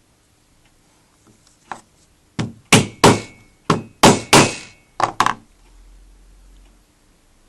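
Hammer strikes knocking rubber seals into the hinge holes of a vanity cabinet panel: about nine sharp knocks in quick succession, a light one first, the loudest in the middle, stopping about two-thirds of the way in.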